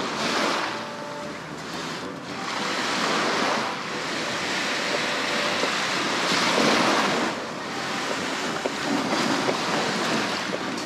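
Small waves breaking and washing up a sandy beach, the surf swelling and fading a few times, a couple of seconds apart.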